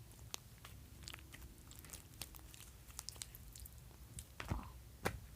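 Old hard slime, gone stiff, being squeezed and pulled by hand, giving scattered small clicks and crackles, with a couple of louder snaps near the end.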